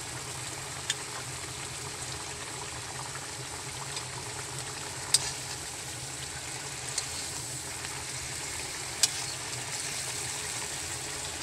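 Chicken karahi gravy of chicken and tomato bubbling and sizzling steadily in a karahi as it cooks down, with a handful of sharp clicks as a metal spatula stirs it.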